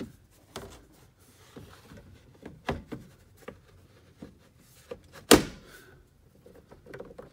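Plastic coolant overflow bottle of a 2004 Jeep Wrangler knocking and clicking as it is worked into its mount, a string of light knocks with one sharp loud clunk about five seconds in.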